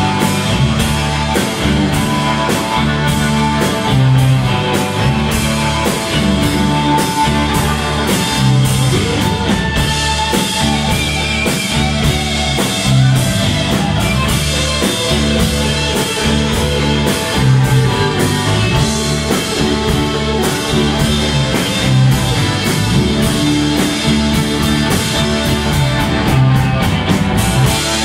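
Live rock band playing: electric guitars, bass and drum kit with a violin, under a steady drum beat, the hits coming faster near the end.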